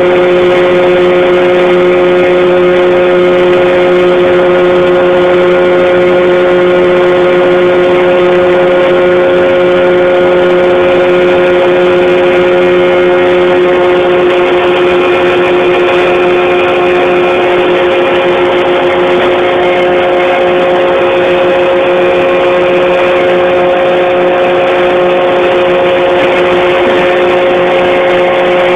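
Atlas Copco Boltec rock-bolting rig running: a loud, steady machine drone with a strong, unwavering pitched hum, no revving or change in speed.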